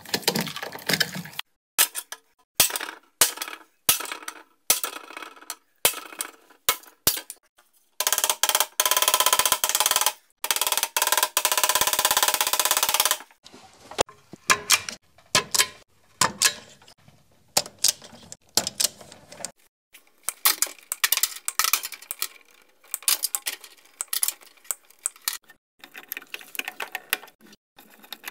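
Quick clicks, clinks and rattles of hand tools and metal parts being worked at an electrical consumer unit, with a power tool whirring for about five seconds in the middle.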